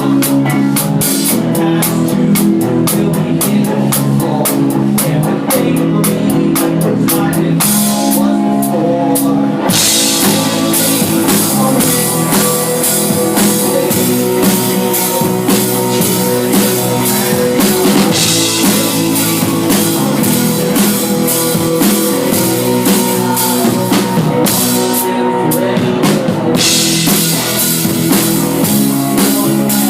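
Rock band playing live: drum kit, electric guitars and bass, loud and continuous, with a brief thinner break at about 8 seconds before the full band comes back in. The recording is a handheld device's microphone in a club.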